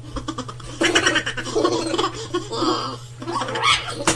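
Person laughing in quick pulsed runs over a steady low hum; the hum stops abruptly near the end.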